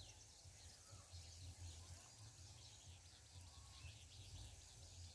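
Near silence: faint outdoor ambience with scattered distant bird chirps over a low, uneven rumble.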